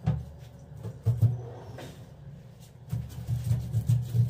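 Knife strokes scaling a fish against a corrugated metal sink board, heard as dull low thuds. A few come spaced out at first, then a quicker run of about four a second near the end.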